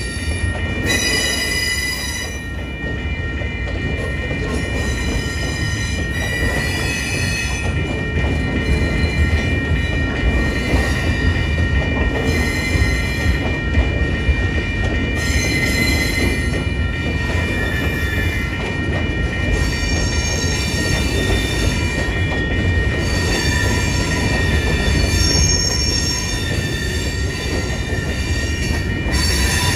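Train cars rolling past with a steady low rumble, their wheels squealing against the rails in a high-pitched squeal that swells and fades.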